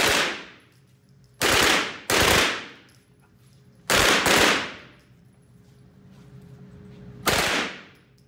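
German WWII MP40 9mm open-bolt submachine gun firing about five short full-auto bursts, each about half a second long, with a long echo tail off the walls of an indoor range.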